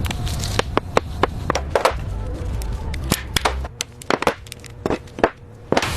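A rapid, irregular series of sharp clicks and knocks over a low rumble; the rumble stops a little past halfway while the clicks go on.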